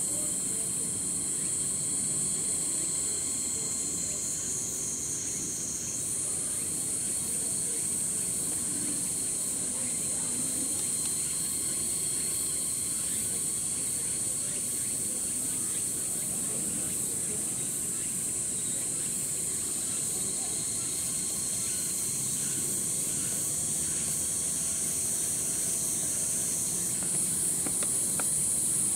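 Chorus of cicadas buzzing steadily at a high pitch. The buzz slides a little lower about four seconds in and again near the end, each time jumping back up. A faint low murmur sits underneath.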